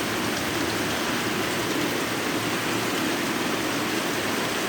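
Steady rain falling, an even hiss that holds at one level without a break.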